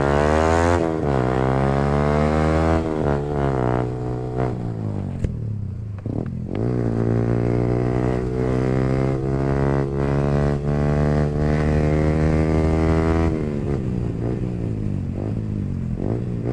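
Yamaha R15M's single-cylinder engine through an aftermarket full exhaust, accelerating through the gears. The pitch climbs and drops at each shift, holds steady at cruising speed, then falls as the throttle closes near the end.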